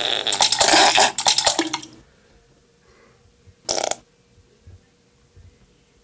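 A man on the toilet making a loud, sputtering fart-like noise for about two seconds, then quiet apart from one brief noise near four seconds in.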